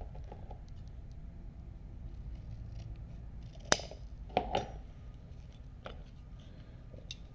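Metal buckle and leather strap being handled: a few sharp clicks, the loudest about halfway through with a quick pair just after, over light rustling.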